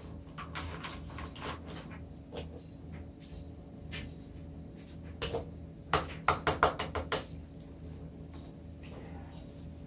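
Silicone spatula scraping peanut butter out of a jar into a measuring cup: soft scrapes and light taps, with a quick run of about six sharp knocks around six to seven seconds in.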